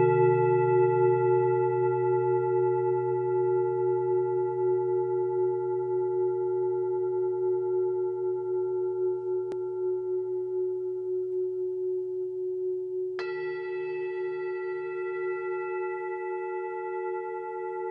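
Bell-like ringing tone that fades slowly with a slow wavering pulse. It is struck again about thirteen seconds in, with a bright new attack that rings on.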